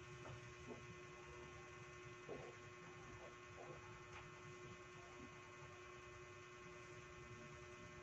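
Near silence: a steady low electrical hum, with a few faint soft rustles in the first half.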